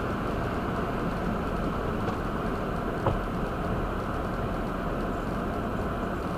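Steady road and engine noise heard inside a car driving on wet pavement, with one short click a little after three seconds in.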